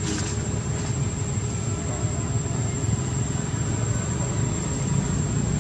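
Steady low rumble, like a motor running, with a thin constant high-pitched whine over it.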